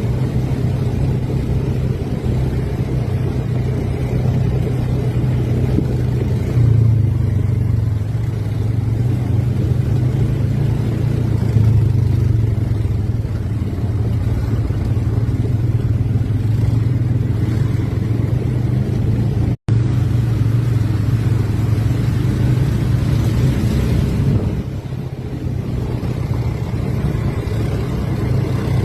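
Quad bike (ATV) engine running on a trail, revs rising and easing now and then. The sound cuts out completely for an instant about two-thirds of the way through.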